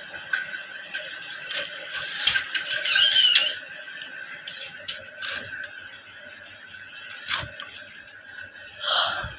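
Clothes hangers clicking and clinking against the wardrobe rail, with cloth rustling, as shirts are hung up. There are sharp clicks every couple of seconds, and a brief high wavering sound about three seconds in.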